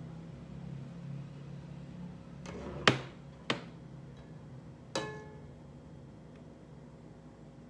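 Metal ladle and glass bowl clinking against cookware and a glass-topped table: three sharp clinks about three, three and a half and five seconds in, the first the loudest and the last ringing briefly.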